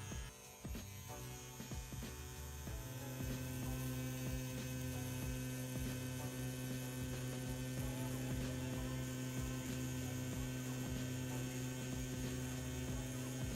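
CNC P6 rotary tattoo pen motor running at 9 volts with a 3 mm stroke, a steady hum, as the needle lines into silicone practice skin. The hum drops out briefly at the start and resumes about two seconds in.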